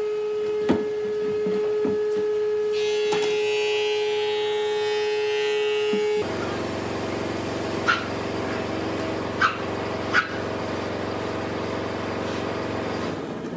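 Woodworking power tools running with a steady machine hum that switches abruptly to a different hum about six seconds in, with a few sharp knocks of wood or tool.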